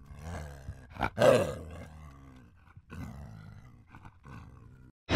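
An animal's deep roar, loudest about a second in, followed by weaker, trailing growls that fade out.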